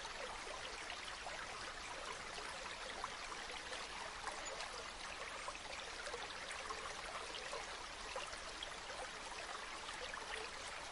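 Running water, a small stream or trickle flowing and splashing steadily without a break.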